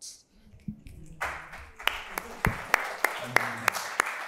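Audience applause starting about a second in, with one set of sharp claps close by at about four a second.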